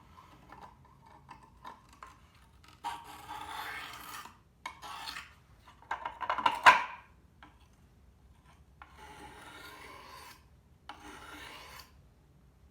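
A scissor blade drawn along a wet, coarse sharpening stone in five separate scraping strokes. The third stroke, about six seconds in, is the loudest.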